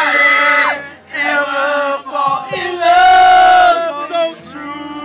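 A small group of men singing a slow love song together in harmony, with long held notes. One note is held for most of a second past the middle, and the singing softens near the end.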